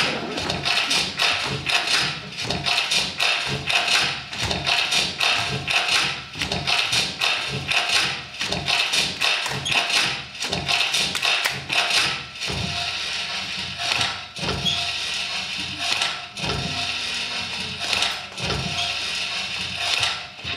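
Percussive dance music driven by rapid rhythmic hand claps and foot taps and stamps, several sharp hits a second.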